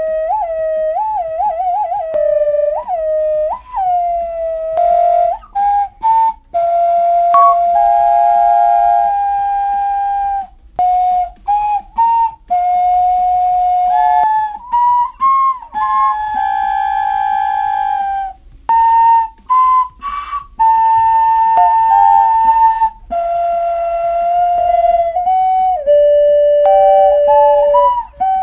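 Clay xoloitzcuintle dog-figure whistles blown, one pure tone at a time. There are quick upward swoops in the first few seconds, then a series of held notes at several different pitches, broken by short pauses.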